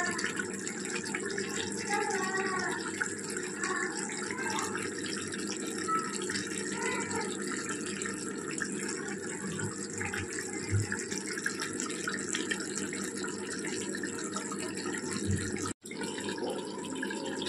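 Chicken masala curry simmering in a kadai: a steady bubbling hiss. Faint voices can be heard in the first few seconds.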